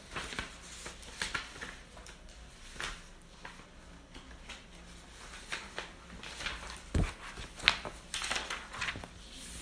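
Scattered rustling and clicks of things being handled, with a sharp knock about seven seconds in.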